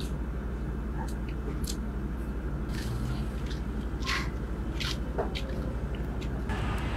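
A small engine running steadily with a low, even pulse, with scattered light scuffs and clicks over it.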